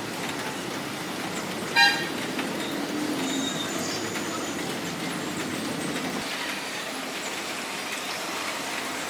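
Steady background traffic noise, with a short vehicle horn toot about two seconds in.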